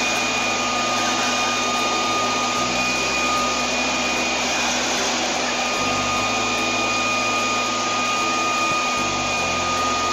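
Leaf blower running steadily: a continuous rush of air with a constant high whine from its fan, the nozzle aimed at a dog.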